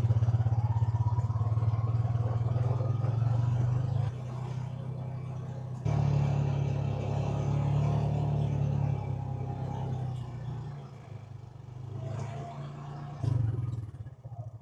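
Honda Pioneer 520 side-by-side's engine running as it drives along towing a trailer. The engine note drops about 4 seconds in, comes back up a couple of seconds later, and eases off and picks up again near the end.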